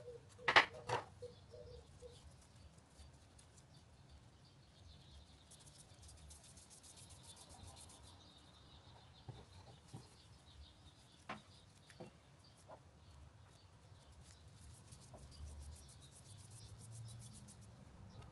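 Hands rounding pieces of soft yeast dough into balls on a tabletop: quiet rubbing and scuffing of dough against the surface. A sharp knock comes about half a second in, and a few small taps follow later.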